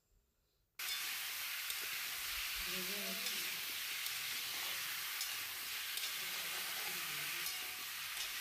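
Small potatoes sizzling steadily as they fry in oil in a kadai, stirred now and then with a spatula. The sizzling starts suddenly just under a second in.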